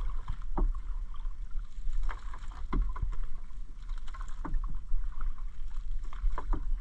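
Wet fishing net being hauled by hand over the side of a small outrigger boat: water splashes and drips off the mesh, with scattered light knocks and splashes about every half second over a steady low wind rumble on the microphone.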